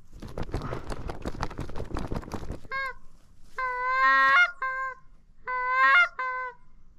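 Goose honking: a run of long, loud, even-pitched honks, several breaking upward at the end. They come after about two and a half seconds of dense crackling rustle.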